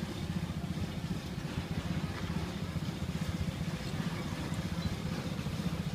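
A steady low rumble of a running engine, without pause or change.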